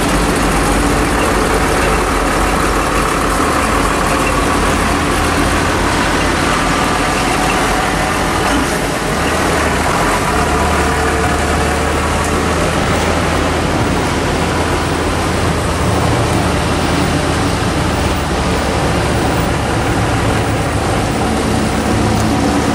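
Classic car engine idling steadily, a low even rumble, under a constant rush of surf and wind.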